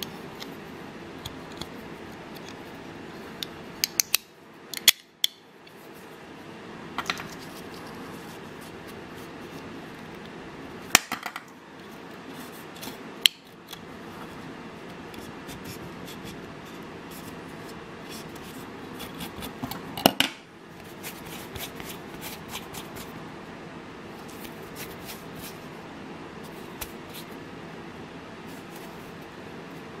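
Leatherman Bond multi-tool being worked: scattered sharp metallic clicks and snips of its blades and pliers opening, closing and cutting. They come in small clusters over a steady low background hum.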